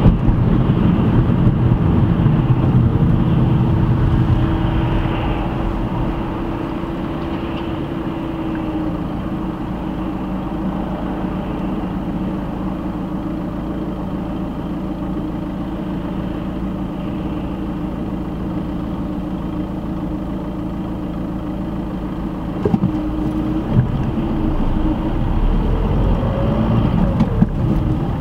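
Car engine and road noise heard from inside the cabin: the car is moving at first, settles to a quieter steady hum while stopped in traffic, and picks up again near the end as it pulls away. A few sharp clicks come a little before the end.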